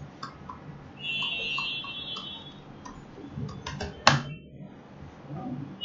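Computer keyboard keys clicking lightly as a password is typed, with one sharper, louder click about four seconds in. A high chirping tone runs for about a second, starting about a second in.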